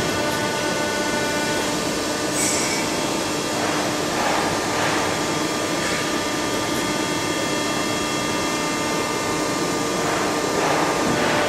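Soraluce FP 8000 CNC travelling-column milling machine running: a steady mechanical whine of several constant tones over a steady rush, swelling briefly a few times.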